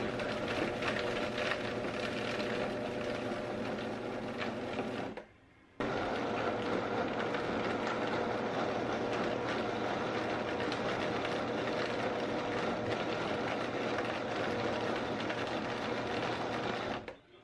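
High-powered countertop blender running at speed, chopping chunks of raw pork into mince, with a steady motor whine. It cuts out briefly about five seconds in, comes straight back at full speed, and stops near the end.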